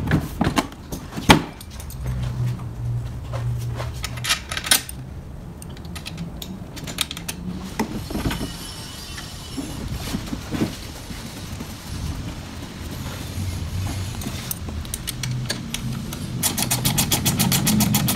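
Chrome side pod bars and hardware clinking and knocking against a steel kart chassis as the side pod is fitted, with one sharper knock about a second in. Near the end a spanner's ratchet clicks rapidly as the pod bar's mounting nut is done up.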